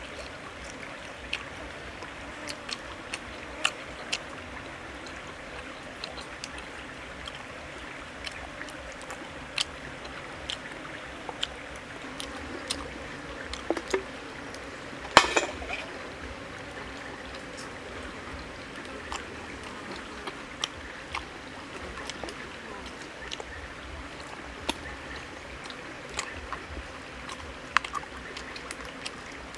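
Steady trickle of a shallow forest stream, with frequent short clicks and taps of bamboo chopsticks against a metal frying pan as food is picked up and eaten. One louder knock about halfway through.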